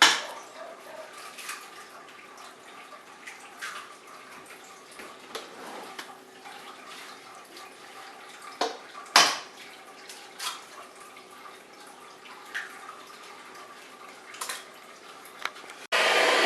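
Scattered clicks and knocks of kitchen utensils and dishes over a faint steady hum, the loudest knocks at the start and about nine seconds in. Near the end a loud electric kitchen motor starts abruptly and runs steadily.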